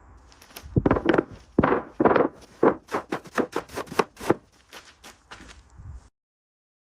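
Hand-tool work on masonry or ground: a quick run of about a dozen knocks and short scrapes, loudest in the first four seconds, that cuts off abruptly.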